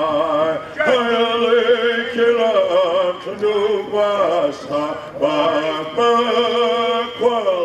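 A man singing a chant in long held notes with a wavering pitch, pausing briefly between phrases.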